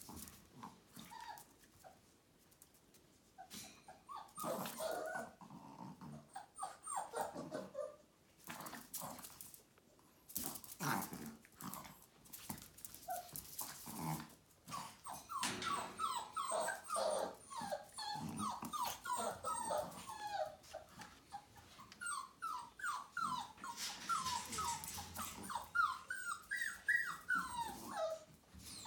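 A whippet puppy and a chihuahua at play, making squeaky play growls and high yips in quick runs that grow busier in the second half. Scattered clicks of claws on the tile floor come in between.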